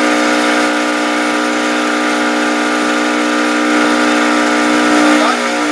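A boat's motor running at a steady speed, holding an even pitch throughout.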